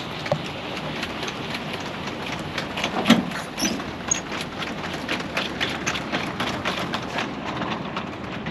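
Tesla Cybertruck's powered tonneau cover retracting: a steady mechanical running sound peppered with many quick clicks as the slatted cover rolls back, with one sharper knock about three seconds in.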